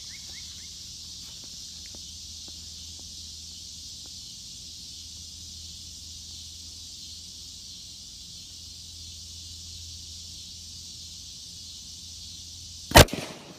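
A plastic soda bottle pressurized with air bursts with a single really loud bang about thirteen seconds in, over a steady chorus of insects.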